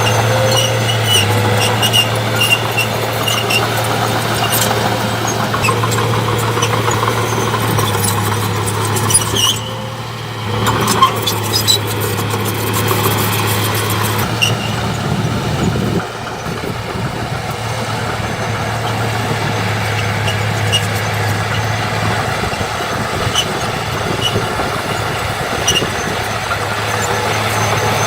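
Heavy diesel earthmoving machinery running steadily, with scattered high squeaks and clicks of metal. The engine sound dips briefly about ten seconds in, then drops to a lower level about sixteen seconds in.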